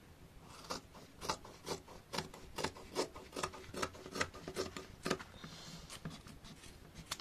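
Fabric scissors snipping through cotton cloth in a run of short crisp cuts, roughly two a second and unevenly spaced.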